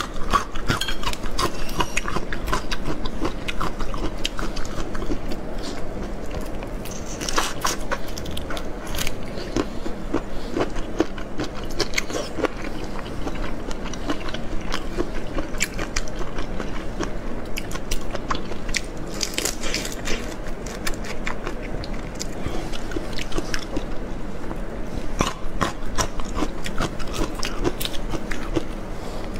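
Close-miked eating of soy-sauce-marinated raw prawns: wet chewing and sucking, with the crackle of prawn shells being pulled apart by hand.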